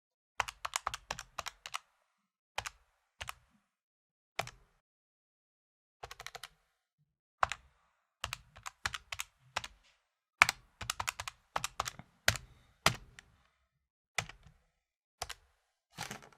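Calculator keys being tapped: quick runs of sharp plastic clicks broken by short pauses, with a few single harder taps, as when punching in numbers.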